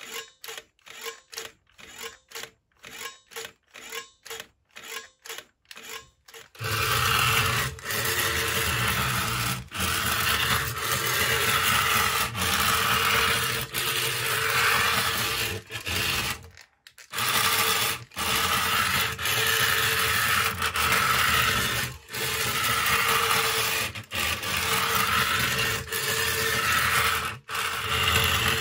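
Small electric motor and tin gearing of a wire-remote tin toy Chevrolet Corvette Stingray, whirring steadily as the car drives. It breaks off briefly every couple of seconds and pauses for about a second midway. Before the whirr starts, about six seconds in, there is a quieter run of short pulses about twice a second.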